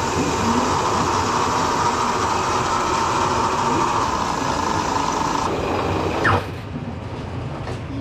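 Milling machine running steadily while it drills holes in a metal part, with a continuous whine in the noise. The whine stops about five and a half seconds in, and a short falling whine follows before the shop goes quieter.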